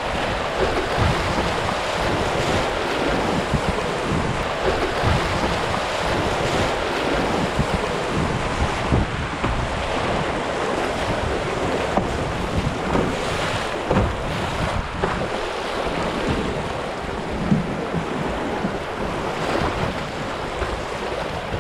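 Fast, high river water rushing and splashing through small rapids around a canoe, with wind buffeting the microphone.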